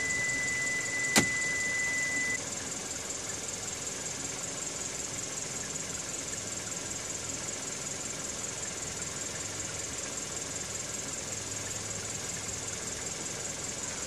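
Car engine idling steadily, kept running by the aftermarket remote-start system with everything else switched off. A steady high beep stops about two seconds in, and a single sharp click sounds about a second in.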